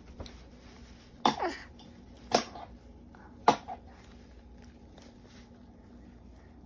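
A baby coughing three times, about a second apart, the first with a falling voiced note.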